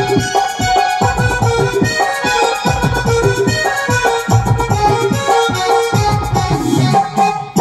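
Live amplified Santali folk band playing an instrumental passage: a sustained melody line over a steady beat struck on electronic drum pads. Near the end a falling glide sounds and the music briefly drops out.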